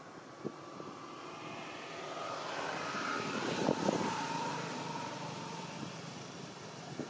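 Engine of a passing motor vehicle, swelling to its loudest about halfway through and then fading as its pitch drops slightly.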